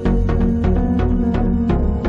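Background music with a steady beat, about three beats a second, over held bass and chord tones.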